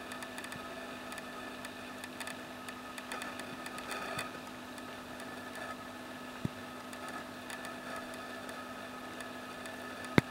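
A steady machine hum with several faint steady tones over a hiss. A faint click about six seconds in and a sharp, loud click near the end.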